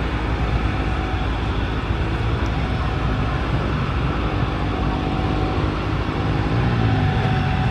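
Steady, loud engine rumble, with a few pitched tones that slide about six to seven seconds in.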